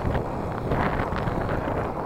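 Wind rushing over the microphone of a camera on a BMX bike riding fast over a packed-dirt track's rollers, with the tyres rolling on the dirt beneath it.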